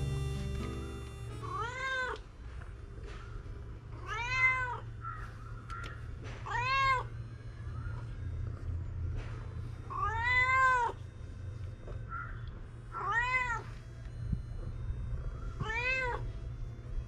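Domestic cat meowing repeatedly: six clear meows, each rising then falling in pitch, spaced two to four seconds apart.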